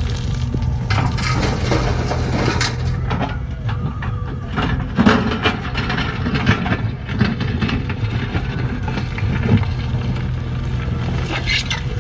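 Backhoe loader's diesel engine running steadily under load, with irregular crunching and knocks of earth and stones being dug or dropped.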